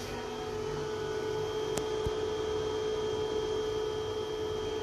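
Kayen Power low-frequency pure sine wave inverter running, giving a steady electrical hum over an even hiss. A short click comes about two seconds in.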